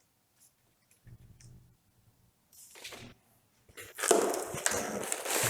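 Packaging and paper being handled, rustling and crinkling: a short swish about three seconds in, then louder, continuous crinkling over the last second and a half.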